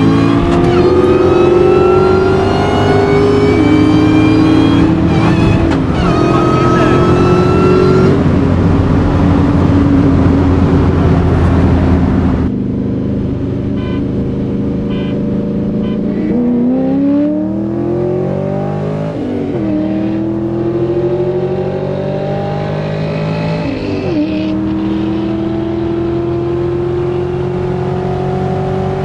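Car engine heard from inside the cabin, revving hard under full-throttle acceleration, its pitch climbing and breaking at gear shifts. Less than halfway through, the throttle lifts suddenly and the engine drops to a quieter, steadier cruise, with a few more shifts.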